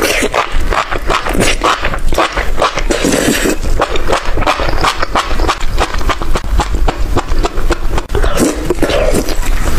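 Close-miked eating sounds: chewing and crunching, with many sharp clicks packed closely together.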